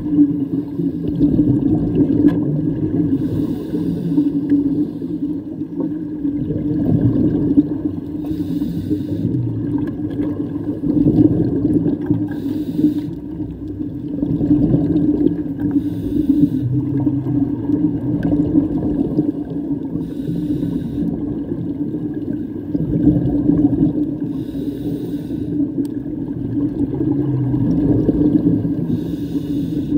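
Scuba regulator breathing heard underwater: slow breaths with bursts of exhaled bubbles every few seconds, over a steady low hum.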